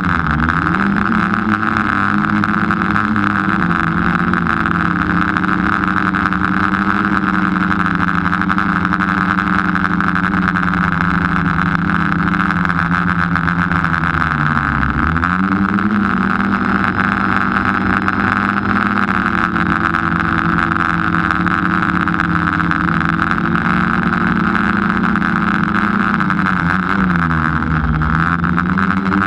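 Motor and propellers of the small aircraft carrying the camera, running steadily with a strong rushing hiss over the engine tone. Its pitch dips sharply and climbs back twice, about halfway through and near the end, as power is eased off and brought back.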